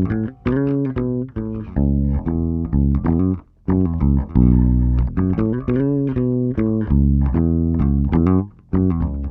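Electric bass played direct through an Avalon U5 Class A active DI with no amp, pickups blended in parallel: a continuous run of plucked notes with a deep low end, a few of them bent or slid in pitch.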